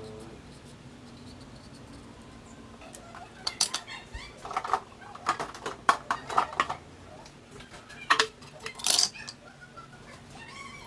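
Knives, plates and bowls clinking and knocking against a tiled kitchen counter and cutting board: a run of sharp clatters from about three seconds in until about nine seconds in.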